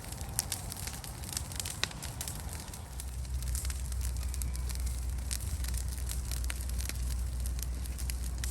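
Large brush-pile bonfire burning, with irregular sharp crackles and pops over a low rumble that grows louder about three seconds in.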